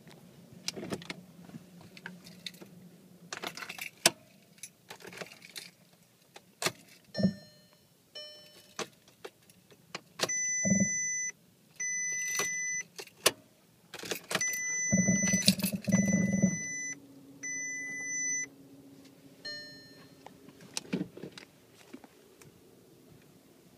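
Car keys jangling and clicking at the ignition of a Volkswagen Tiguan, then five electronic warning chimes from the dashboard, each about a second long. About fifteen seconds in the engine cranks and starts, then settles into a steady idle hum.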